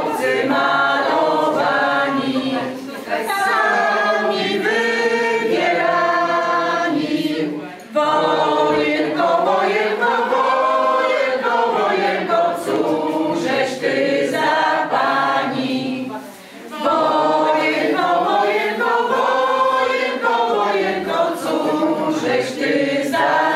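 A roomful of men and women singing a Polish patriotic song together in unison from song sheets, in long sung phrases with short breaks for breath between them.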